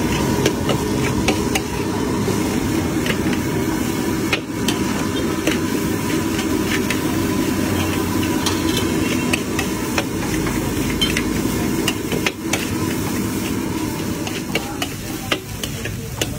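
Long metal spatula scraping and clanking against a large steel wok as a big batch of fried rice is stir-fried, with a light sizzle over a steady low rush.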